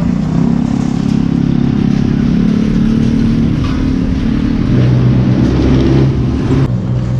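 An engine running close by, loud and steady, its pitch dropping about two thirds of the way through and cutting off shortly before the end.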